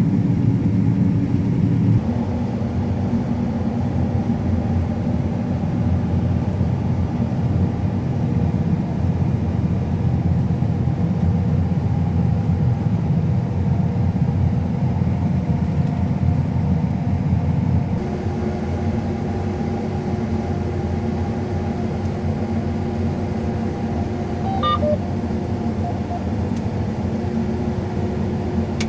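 Combine harvester running, a steady low engine and machinery drone that shifts character abruptly twice.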